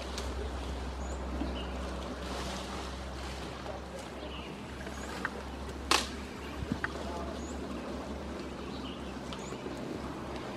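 An Asian elephant feeding in tall grass, with scattered rustles and small cracks and one sharp snap about six seconds in. Faint short bird chirps sound over a steady outdoor background.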